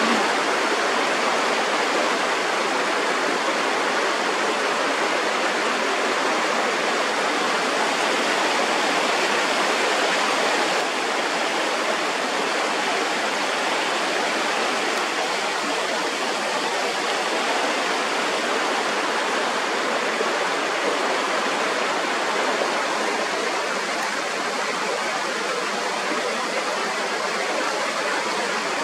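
Rocky mountain stream running over stones and small cascades: a steady rush of flowing, splashing water.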